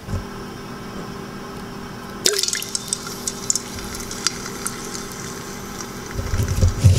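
Oil in a cooking pot crackling, with scattered sharp pops starting suddenly about two seconds in, over a steady low hum. A low rumble of handling noise comes near the end.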